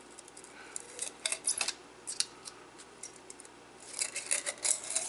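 Dry bay leaves crackling and rustling as fingers pick them out of a small glass spice jar, in short bursts of crisp clicks about a second in, around two seconds, and again near the end.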